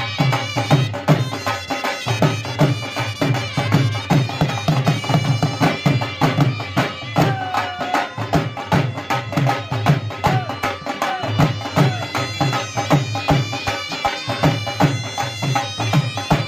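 Traditional folk music: a fast, steady drumbeat under a sustained wind-instrument melody.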